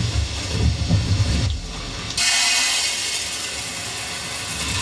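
Dry urad dal pouring in a steady stream into a large metal pan, a continuous hiss and rattle of grains that starts suddenly about two seconds in. Before it, a low rumble.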